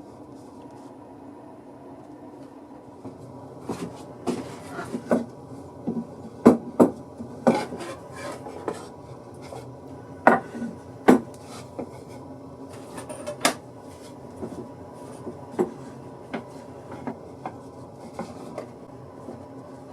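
Metal drill bits clinking and knocking as they are set one by one into a wooden holder: a run of separate light clinks and taps, starting a few seconds in, thickest in the middle and thinning out near the end, over a steady low hum.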